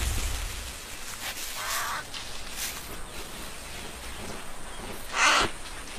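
Harsh, crow-like bird caws: a faint one just before two seconds in and a louder one about five seconds in, over a faint steady hiss.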